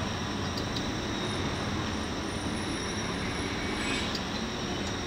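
City bus driving along a street, heard from inside the cabin: steady engine and road noise with a few faint rattling ticks.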